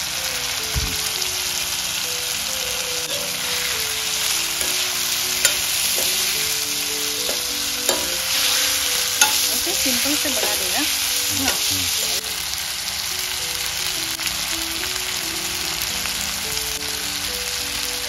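Chicken pieces and spices sizzling in hot oil in a steel pan, stirred with a steel ladle that scrapes the pan, with a few sharp clicks of the ladle against the metal in the middle. Quiet background music underneath.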